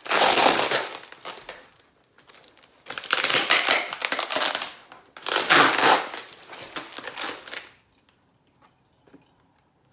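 Packing material being crumpled and pulled about while a box is unpacked: three loud bouts of crinkling, then quiet for the last two seconds.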